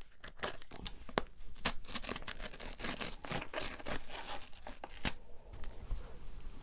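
Close-miked eating sounds of a mugwort steamed rice cake being torn and chewed: a run of sharp, crackly clicks that thins out about five seconds in.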